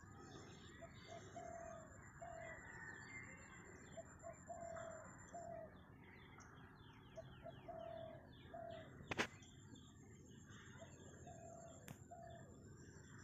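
Faint birdsong over open fields: one bird repeats short low cooing notes about once a second while others give small high chirps. A sharp click about nine seconds in, and a weaker one near the end.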